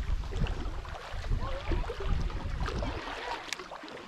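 Water lapping against a small boat, with wind buffeting the microphone as a low rumble that drops away about three seconds in.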